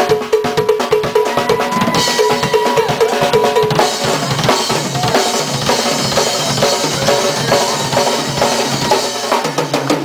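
Live drum kit solo: fast hits on the drums with a quick run of ringing pitched strikes on a bell-like percussion piece in the first four seconds, then cymbals wash in and the playing carries on across the kit.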